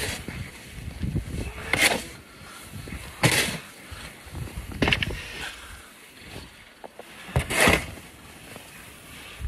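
Snow being shoveled: a series of short scraping, swishing strokes, about one every one and a half to two seconds.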